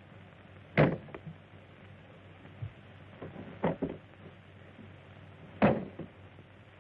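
Three separate short knocks or clunks, a few seconds apart, over the steady hiss of an old film soundtrack.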